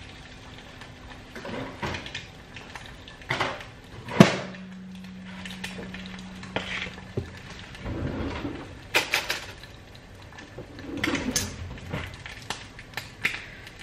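Kitchen handling sounds: scattered clicks, knocks and the clatter of dishes and a cupboard. A sharp knock about four seconds in is followed by a low steady hum lasting about four seconds.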